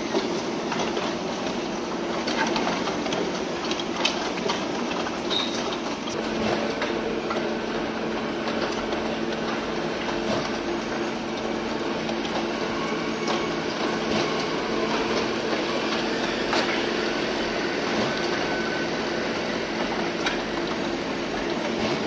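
JBS40 concrete mixer pump running, a steady mechanical hum with several held tones and a continuous rattle of small knocks as the machine mixes and pumps concrete.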